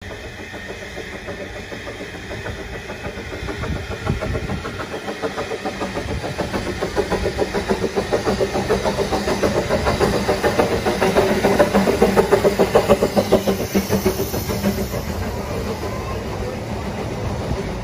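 Narrow-gauge steam locomotive approaching and passing on the adjacent track, its exhaust beats at about two to three a second growing louder to a peak about twelve seconds in. Its carriages then roll past with a steadier rumble.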